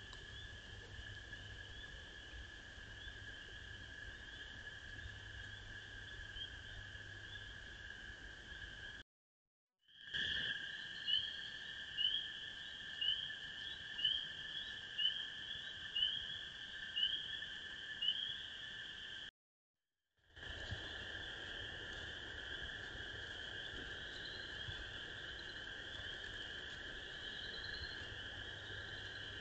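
Night chorus of frogs: a steady high-pitched calling that runs on through three separate clips, broken by two short silences. In the middle clip one nearby frog gives loud rising peeps about once a second over the chorus.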